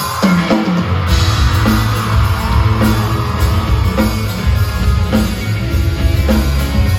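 A four-piece rock band playing a song's intro live as a sound check, loud and full, with a steady beat.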